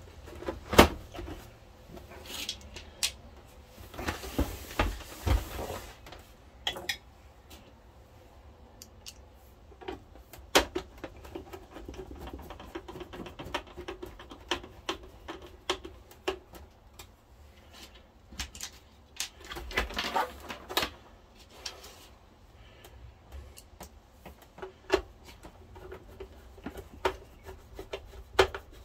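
Sheet-metal top cover of a 1982 Panasonic NV-366 VHS recorder being fitted back on: knocks and a scrape of metal on metal a few seconds in, then scattered clicks and runs of quick small ticks as the case is handled and screwed down.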